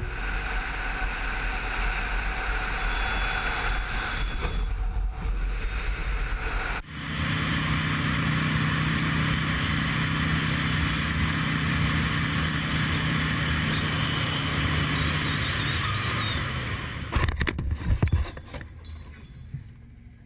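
Steady road and wind noise from a moving vehicle, then a cruiser motorcycle's engine running steadily at speed. Near the end comes a short cluster of knocks and scraping as the bike crashes.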